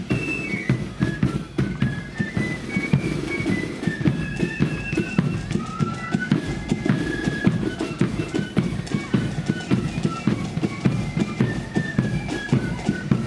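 Marching flute band playing a tune: flutes carry the melody over fast, dense snare and bass drum beats.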